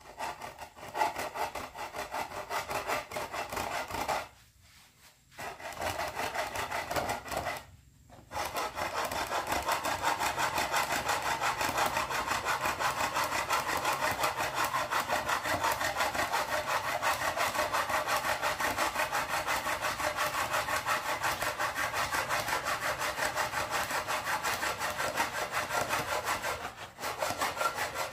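Handsaw cutting through jackfruit wood in quick, steady back-and-forth strokes. The sawing stops briefly twice in the first eight seconds and once for a moment near the end.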